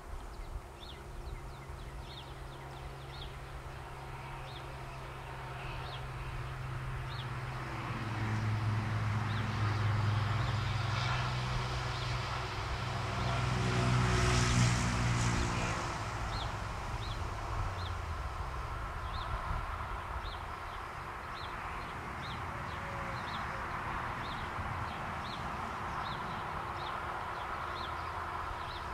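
An engine passes by, a low hum that swells to its loudest about halfway through and then fades. Short high chirps repeat about once a second.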